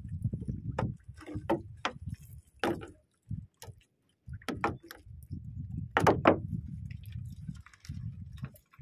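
Handling noise aboard a small fishing boat while a net is picked: irregular sharp knocks and clicks over a low rumble, with a brief near-silent gap about three seconds in.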